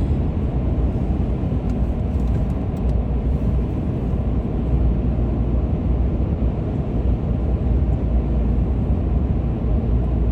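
Steady low rumble of a moving car's engine and tyres on the road, heard from inside the cabin, even throughout with no sudden sounds.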